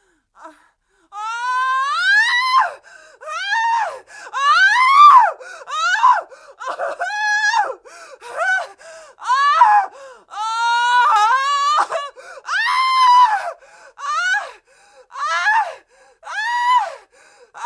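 A woman screaming in fear: a series of high-pitched shrieks in quick succession, each rising then falling in pitch.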